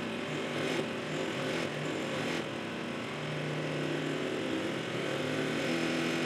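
Tormach 8L CNC lathe running, its spindle turning an aluminum bar while a turning tool cuts the bar's end dry, without coolant. A steady machine sound with motor tones that shift a little partway through.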